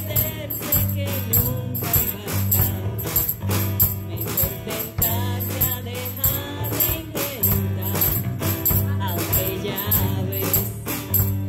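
A small band playing a song live, with a woman singing into a microphone over drums, guitar and keyboard. A hand tambourine jingles on a steady beat throughout.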